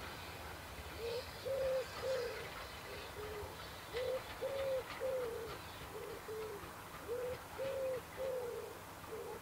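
Wood pigeon cooing its repeated five-note phrase, three longer coos followed by two short ones, over and over. Faint chirps of small birds behind it.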